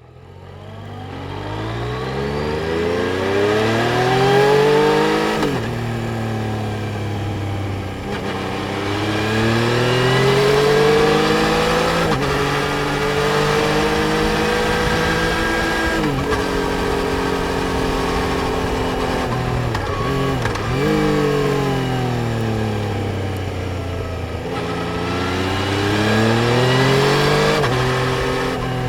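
Yamaha Tracer 900 GT's 847 cc inline-three engine pulling hard through the gears. Its pitch climbs and then drops sharply at each upshift, with a couple of quick dips where the revs fall and come straight back up.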